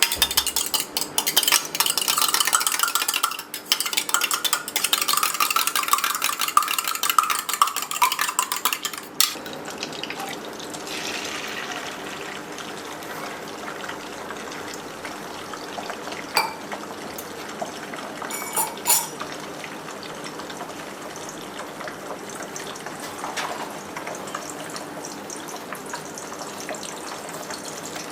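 Food frying in a pan and being stirred: about nine seconds of loud scraping and rattling of a spatula against the pan over the sizzle, then a quieter steady sizzle with a couple of brief clinks.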